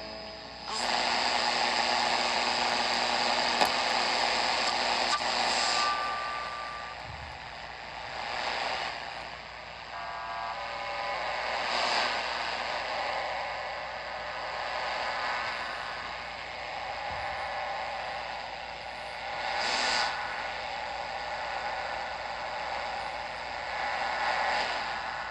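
Philips D1835 Compass radio's speaker hissing with static between stations as the dial is tuned. Brief whistling tones come and go and the noise swells now and then.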